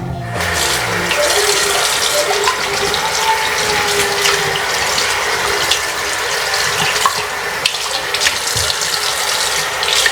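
Water running from a tap into a sink: a steady rush of water.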